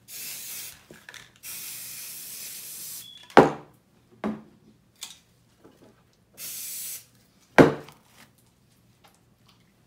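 Aerosol spray paint can spraying in three hisses, two short and one about a second and a half long. Two sharp knocks in between are the loudest sounds.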